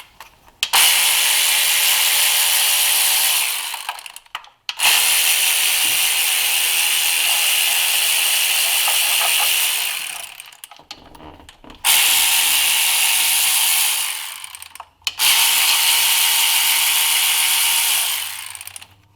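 Cordless power tool spinning out valve cover bolts, run in four bursts of a few seconds each with short pauses between.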